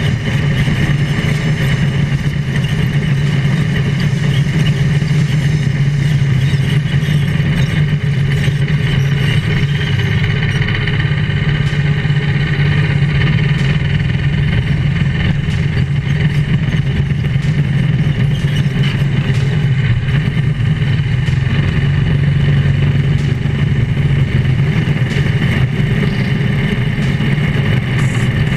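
Drift kart's small engine running steadily at an even pitch, heard close up from on board the moving kart.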